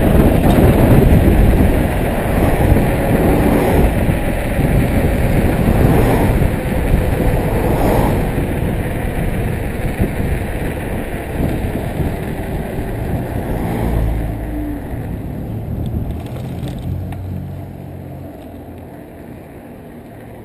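Wind rushing over a handlebar-mounted action camera's microphone, with tyre noise on asphalt, during a fast downhill bicycle ride. The rush dies away over the last few seconds as the bike slows, leaving a low engine hum from a vehicle alongside.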